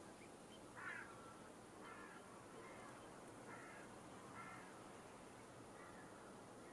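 Faint, short, harsh bird calls, about six of them at irregular intervals, the first the loudest, over a steady background hiss.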